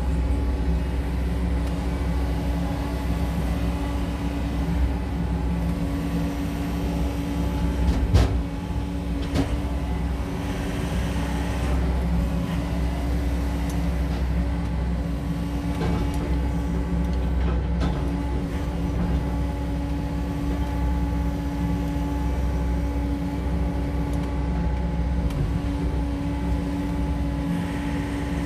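SANY SY80U mini excavator's diesel engine running steadily as the machine works. There is one sharp knock about eight seconds in and a few lighter knocks later.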